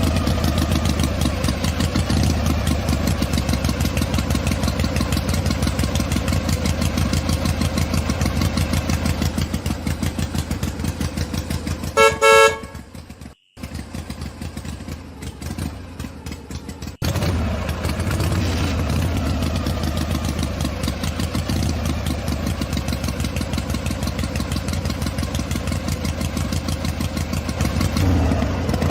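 Engine running with a fast, steady chug, interrupted about twelve seconds in by a short horn honk and a brief cut-out, then running on.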